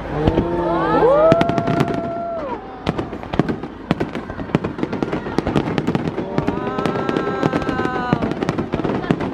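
Aerial fireworks bursting overhead: a dense, continuous crackle of sharp pops and bangs. Twice, drawn-out voices rise over the crackle, the first gliding up and then holding.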